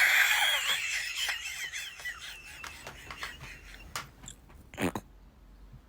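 High-pitched wheezing laughter: a squeaky, wavering wheeze that fades away over the first two or three seconds, followed by a few faint clicks and a short burst near the end.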